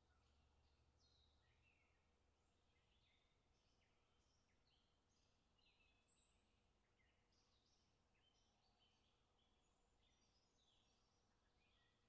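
Very faint songbirds singing: many short, quick chirps and trills overlapping throughout, over a faint steady hum.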